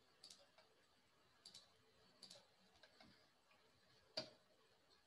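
Faint computer mouse clicks over near-silent room tone: a few quick double clicks in the first two and a half seconds, then a single louder click about four seconds in.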